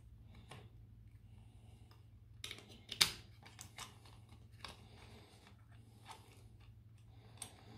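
Small clicks and taps of hands handling the opened Makita 18V lithium-ion battery pack while a replacement circuit board is fitted onto its cells. The clicks are scattered, with the loudest about three seconds in, over a faint low hum.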